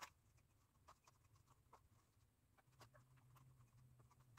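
Near silence: faint room tone with a low hum and scattered faint ticks, and one sharp click near the end.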